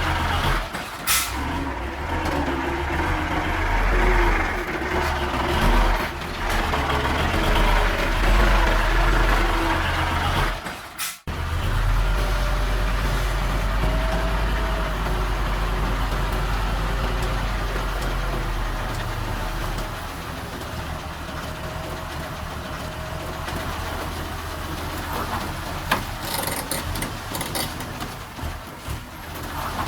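Diesel engines of heavy earthmoving machinery, a bulldozer and dump trucks, running with a deep steady rumble. The sound breaks off briefly about eleven seconds in, then carries on, a little quieter in the last third.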